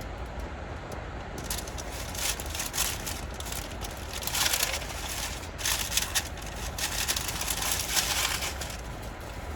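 Irregular rustling and crinkling of paper and plastic trash being handled and stuffed into a bag, loudest in several bursts near the middle and toward the end, over a low steady hum.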